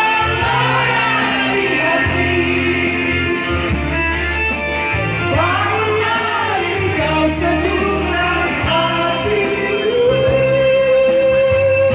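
A singer with instrumental accompaniment and a steady bass line, the voice wavering through a phrase and then holding one long note from about ten seconds in.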